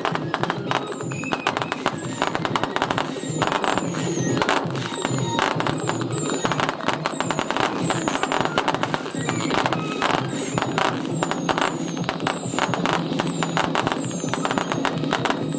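Aerial fireworks going off without pause: dense crackling and popping, with many short high whistles falling in pitch.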